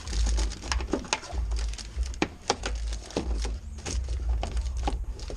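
Hands feeding and twisting an air-suspension line or wire through the car's body: irregular clicks, taps and rustles, with a low rumble underneath.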